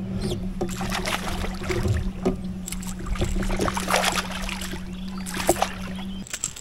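Kayak's electric outboard motor humming steadily, cutting off about six seconds in, with irregular splashes of water around the kayak.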